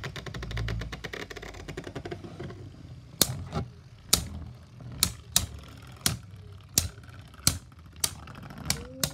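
Two Beyblade spinning tops, Cursed Satan and Union Achilles, running in a plastic stadium: a fast fine rattle at first. From about three seconds in come repeated sharp hard-plastic clacks as the tops collide, at an uneven one or two a second.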